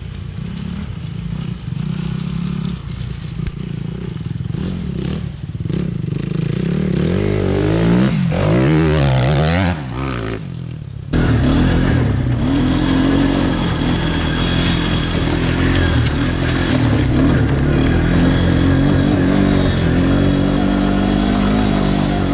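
Motorbike engine running and revving, its pitch rising and falling several times in the middle. About eleven seconds in the sound changes suddenly to an engine running louder and steadily.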